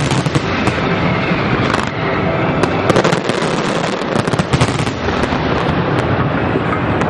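Fireworks display: a dense barrage of bangs and crackling from bursting shells and comets, with heavier clusters of sharp reports at the start, about three seconds in and about four and a half seconds in.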